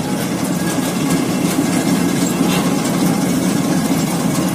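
Claas Dominator combine harvester running steadily alongside, a dense, even mechanical drone.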